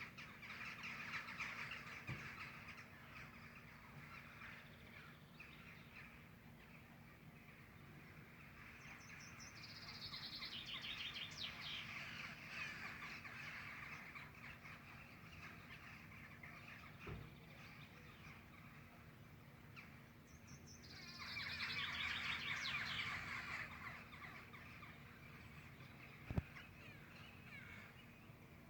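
Several songbirds chirping in a morning chorus, fairly quiet. Twice, a louder song phrase runs down in pitch for about three seconds.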